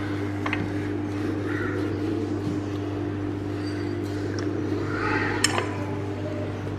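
Metal ice cream scoop scraping through frozen sorbet in a glass container, with a few sharp clinks of metal on glass, the sharpest about five seconds in, over a steady low hum.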